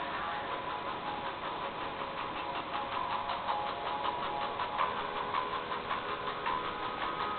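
A lock pick working the pins of a Lockwood 234 M45 pin tumbler lock during single pin picking: a rapid run of small metallic ticks and scrapes, getting more distinct about two seconds in.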